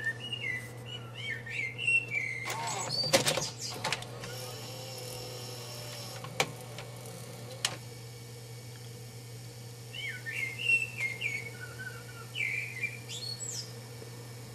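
Panasonic NV-HS900B S-VHS VCR's tape mechanism running with its cover off, a steady hum under it. A burst of mechanical clattering comes about three seconds in, and sharp clicks follow a few seconds later. Quick high chirping twitters are heard near the start and again from about ten seconds in.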